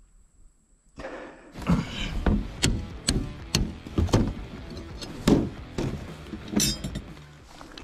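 Irregular knocks and clunks, starting about a second in, from a hand crank and access hatch being worked on the side of a Coleman Fleetwood pop-up camper.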